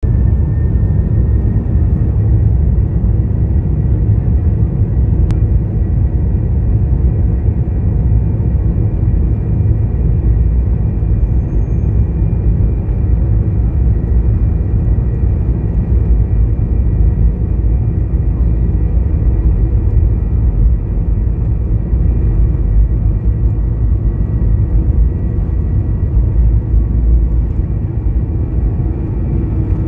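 Jet airliner cabin noise on the takeoff roll: the underwing turbofan engine at high thrust, a faint steady whine over a heavy low rumble as the plane speeds down the runway.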